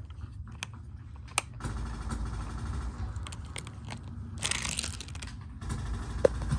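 Hands handling a plastic Hot Wheels toy playset: a few sharp plastic clicks over a low handling rumble, with a brief scraping rush about four and a half seconds in.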